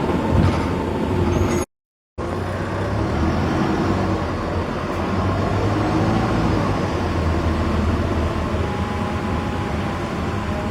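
Mercedes-engined Optare Solo bus with an Allison automatic gearbox running under way, with a steady engine note and a faint whine. The sound drops out completely for about half a second near the two-second mark, then resumes.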